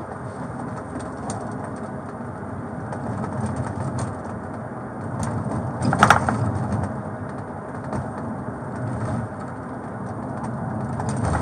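Steady low engine and road rumble inside a police car's rear passenger compartment as it drives, with a brief louder sound about six seconds in.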